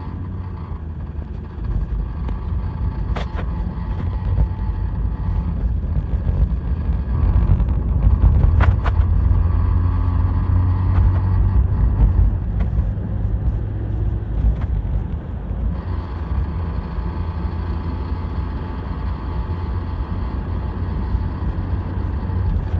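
2019 Ram Warlock pickup driving: a low, dense drone of engine and road noise that grows louder over the first eight seconds or so as it accelerates, then holds steady, with a few sharp clicks. The owner hears a rattle on acceleration that he suspects is something loose in the engine or a wheel panel, though this recording does not bring the noise out clearly.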